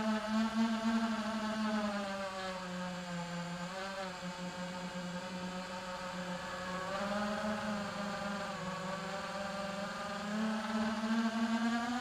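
iFlight Titan DC5 five-inch FPV quadcopter's brushless motors and propellers whining in flight, picked up by the drone's onboard recorder. The pitch sags about two seconds in, wavers through the middle and climbs again near the end as the throttle changes through the turns.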